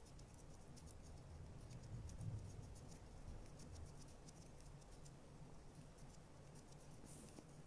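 Faint soft scratching of a flat paintbrush spreading decoupage glue over a napkin-covered frosted glass lamp, in irregular little strokes over a low steady hum.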